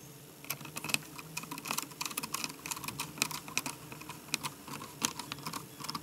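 Small screwdriver turning a keyboard retaining screw into a Dell Latitude D620 laptop: a run of quick, irregular light clicks and ticks, several a second.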